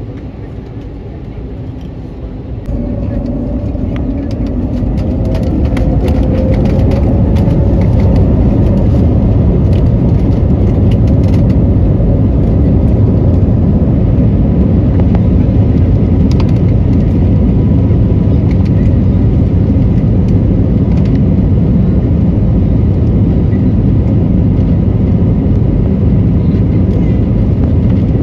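Jet airliner engines heard from inside the cabin, spooling up to takeoff thrust about three seconds in with a rising whine. This gives way to the loud, steady rumble of the takeoff roll, with light clicks and rattles over the first dozen seconds.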